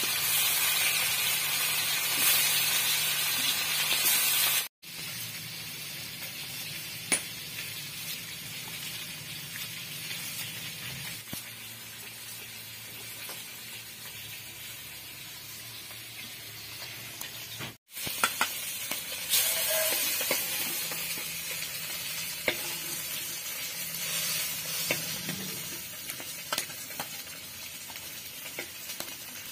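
Fish steaks frying in hot oil in an iron kadai, a loud sizzle as a piece is laid in the oil. The sizzling drops away abruptly about five seconds in, leaving a quieter stretch. It returns about eighteen seconds in, with a few clicks of a metal spatula in the pan.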